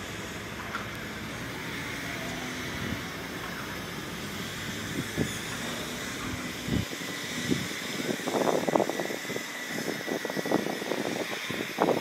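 Heavy diesel construction machinery running with a steady low rumble. About seven seconds in, the sound changes to a dense, irregular clatter.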